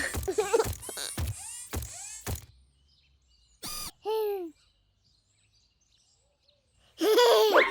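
Cartoon bird sounds: a quick run of short chirping calls with a few knocks, a lone squawk about four seconds in, then loud goose-like honking near the end.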